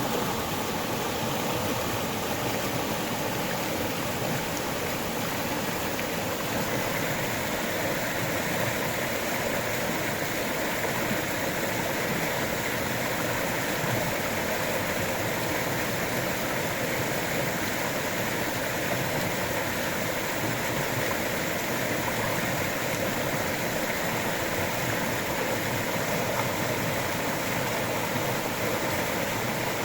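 River water flowing over rocks: a steady rushing and babbling.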